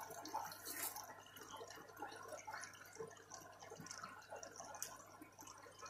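Faint trickling and dripping of a paludarium's small waterfall, water spilling from a cork-bark ledge into the tank, with small irregular splashes.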